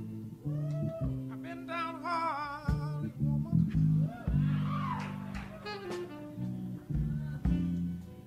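Live blues band playing: an electric bass holds low notes under electric guitar lines with wide vibrato, with scattered drum hits.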